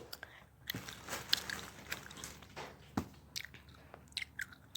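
Plastic packaging bag crinkling and rustling in irregular crackles as a hand rummages in it and pulls out a squishy toy, with a sharper click about three seconds in.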